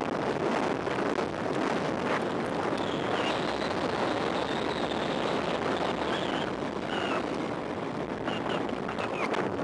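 Wind rushing over a sunglasses camera's microphone on a fast mountain-bike descent, with the bike's tyres running on asphalt underneath. It is a steady, loud noise, with a few faint, short high squeaks coming and going in the second half.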